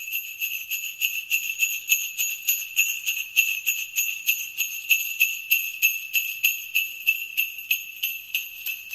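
Jingle bells shaken in a steady rhythm, about three to four shakes a second, with a continuous high ringing.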